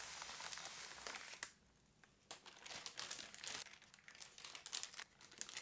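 Tissue paper wrapping crinkling as it is handled and unfolded from around a keyboard. There is an even rustle for about a second and a half, then after a short pause a run of sharper, uneven crinkles.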